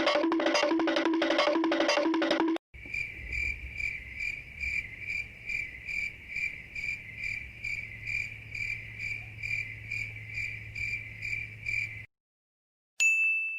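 Crickets chirping in a steady pulse, about two to three chirps a second, the familiar 'awkward silence' meme sound effect. Before it a short rhythmic music loop with a knocking beat cuts off suddenly, and near the end a single bright ding rings out and fades.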